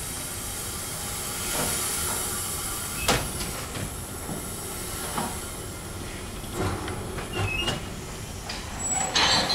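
Narrow-gauge sugar-mill steam locomotive standing in steam, with a steady hiss and scattered metallic knocks and clanks, a sharp one about three seconds in. Near the end it creeps forward, with brief squeals and a louder gush of steam.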